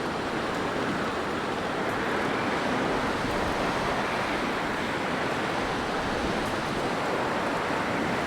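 Blizzard wind blowing in a steady, dense rush of noise, swelling slightly a couple of seconds in.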